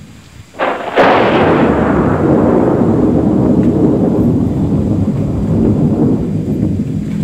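A thunderclap: a sharp crack about a second in, followed by a long low rumble that slowly dies away.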